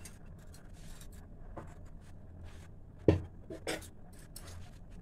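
Faint scratching and rustling of kitchen handling, with a sharp knock about three seconds in and a lighter one just after.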